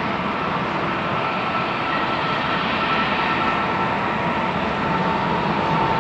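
Jet engines of a wide-body twin-engine airliner landing: a steady roar with a thin whine over it, getting a little louder in the second half as the plane touches down and rolls out.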